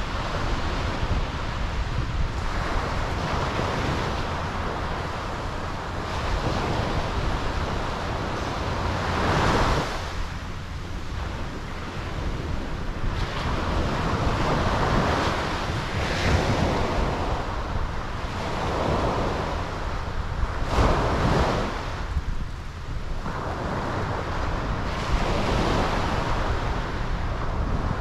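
Ocean surf breaking and washing ashore over a flat lava-rock shelf, rising and falling every few seconds, with stronger washes about a third of the way in and about three quarters in. A low rumble of wind on the microphone runs underneath.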